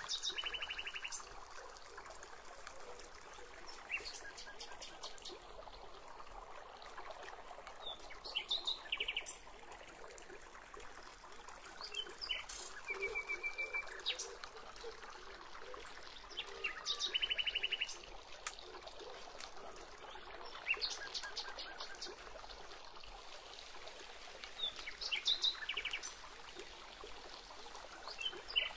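Birds calling in short, rapid trills of high chirps, each lasting about a second and recurring every few seconds, over a faint steady background hiss.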